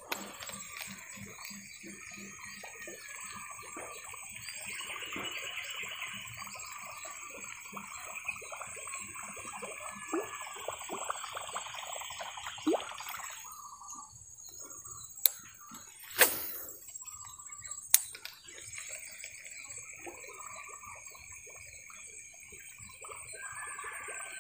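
Spinning reel being wound to retrieve a lure, with soft rapid ticking, under a steady high chirring in the background. Three sharp clicks come in the second half.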